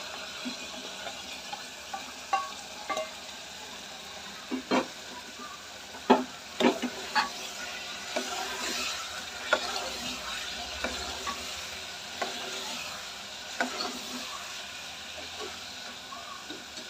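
Potato and chicken pieces stirred into frying masala in a pressure cooker with a steel spoon. There is a steady sizzle, with a dozen or so sharp clinks of the spoon against the metal pot, the loudest about six seconds in.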